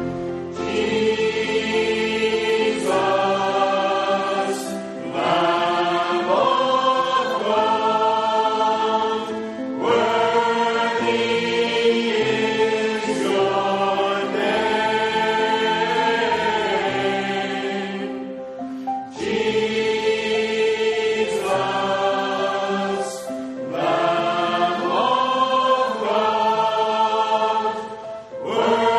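A church choir singing a slow hymn. The sung lines come in similar phrases of about nine seconds, each ending in a brief pause.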